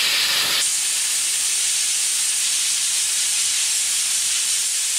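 Compressed air rushing from a handheld air blow gun on a shop air hose: a steady, loud hiss, a little stronger in the first half second, that cuts off suddenly at the very end.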